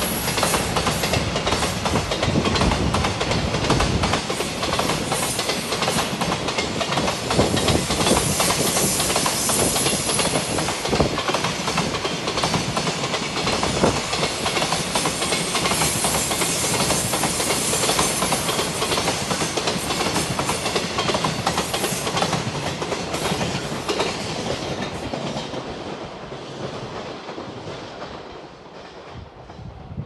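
Freight container wagons rolling past at speed, their wheels clattering over the rail joints in a steady rush of noise. Over the last several seconds the sound fades as the end of the train moves away.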